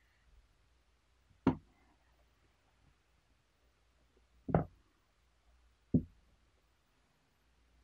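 Glass teapot lid and a ceramic cup being set down on a table: three short knocks, about a second and a half in, about four and a half seconds in, and about six seconds in.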